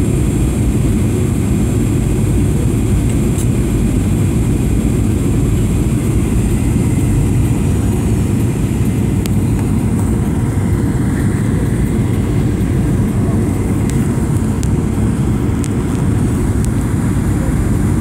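Steady low rumble of a passenger aircraft's cabin in flight on its landing approach: engine and airflow noise heard from a passenger seat.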